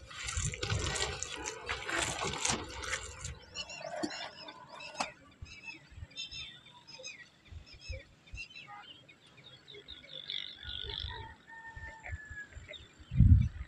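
Wet squishing of hands working onion pakora batter in a plastic bowl for the first few seconds, then birds chirping in short calls over open farmland. A brief loud low rumble comes near the end.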